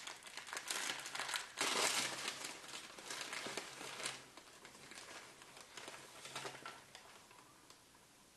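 Wrapping crinkling as a small gift is unwrapped by hand, loudest about two seconds in and dying away over the last few seconds.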